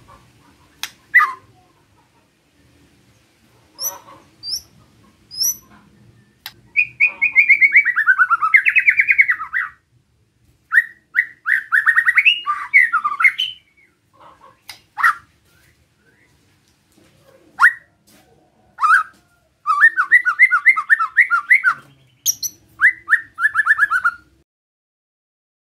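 White-rumped shama (murai batu) giving its besetan: four bouts of fast, rasping repeated notes, each a couple of seconds long, with sharp single chips between them and a few thin high notes early on. It is a scolding call, used to rouse other shamas to sing.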